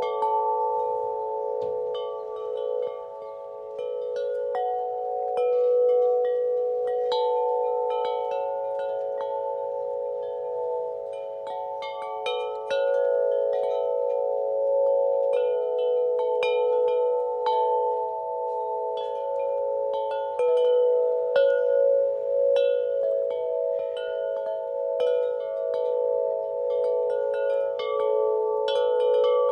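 Wind chimes ringing in the wind: irregular strikes setting off several overlapping, long-sustaining tones that blend into a continuous shimmer.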